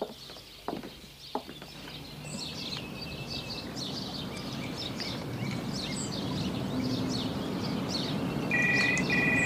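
Birds chirping over a low background hum that slowly swells. Near the end a telephone rings with two short electronic trills in quick succession, the British double-ring pattern.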